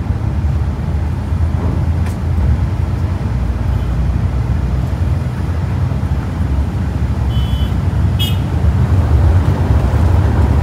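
Mercedes-Benz OH 1526 bus under way: a steady low engine and road rumble. Two short high beeps sound about three-quarters of the way through.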